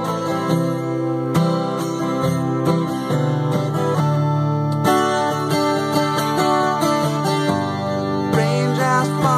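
Steel-string acoustic guitar strummed in a steady chord pattern. A man's singing voice comes in near the end.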